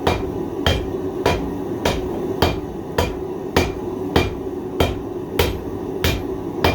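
Hand hammer striking a hot 1/4-inch 1095 carbon steel cleaver blank held over the side of an anvil, a steady rhythm of about twelve blows, a little under two a second.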